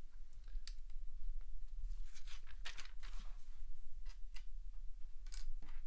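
Plastic LEGO bricks clicking and rattling as pieces are picked up and pressed together: a handful of short, irregular light clicks over a low steady hum.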